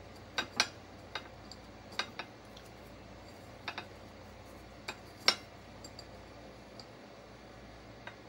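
Scattered sharp clicks and clinks as a fingernail scrapes a sticker off the base of an upturned bowl, the bowl knocking against the plate it rests on. The loudest clink comes a little past halfway.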